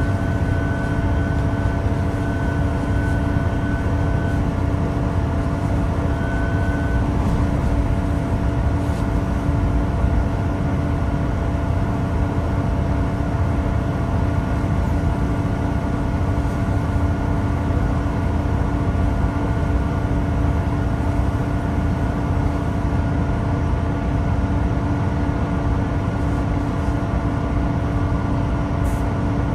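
Great Western Railway Class 166 diesel multiple unit heard from inside the carriage: its underfloor diesel engine runs steadily with a dense low rumble and constant humming tones. A higher whine over it fades out a few seconds in.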